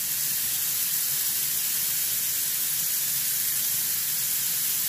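Kitchen tap running in a steady stream into a stainless steel sink, a constant hiss of water splashing.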